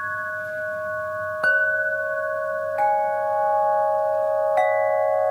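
Rock-crystal (quartz) rods struck one at a time with a mallet. There are three strikes, roughly a second and a half apart, each giving a clear bell-like tone that rings on long and layers over the tones still sounding.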